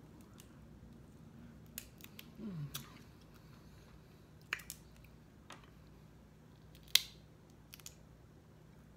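Scattered sharp clicks and snaps of cooked snow crab legs being handled and cracked by hand while eating, the loudest about seven seconds in. A brief falling hum of a voice comes near two and a half seconds.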